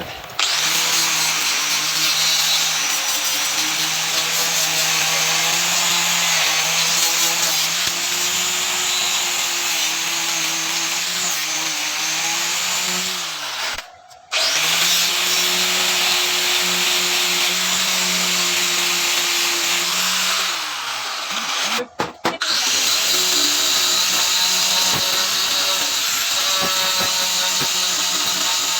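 Electric power tool running steadily with a motor hum and a harsh noisy edge. About 13 seconds in it is switched off and winds down, its pitch falling, then starts again a moment later; the same happens again about 21 seconds in.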